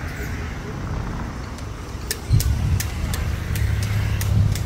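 Low, steady rumble of a motor vehicle's engine, growing louder about two seconds in, with scattered sharp clicks over it.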